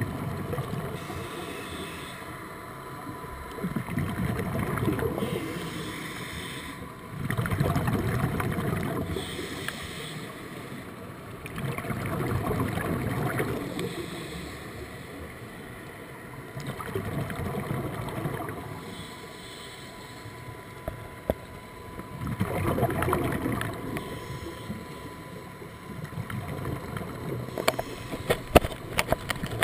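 Scuba breathing heard underwater: a bubbling rush of exhaled air from a regulator swells and fades about every five seconds, with quieter stretches between. A faint steady whine sits under it, and several sharp clicks come near the end.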